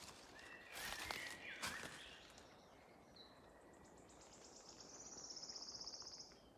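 A faint, high, rapidly pulsing insect song that swells over about three seconds and then cuts off sharply, heard over quiet woodland. About a second in there are a couple of brief rustles and short chirps.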